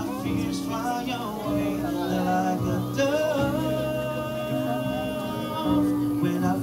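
Music: a voice singing long held notes over a steady accompaniment.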